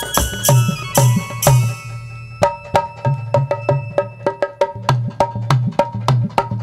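Live instrumental band music: held melody notes and a pulsing bass line, with hand-drum strokes growing sharper and more regular, about three a second, from about two and a half seconds in.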